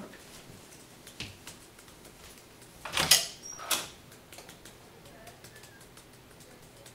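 Light, irregular clicking of typing on a laptop keyboard, with two louder brief noisy sounds about three seconds in.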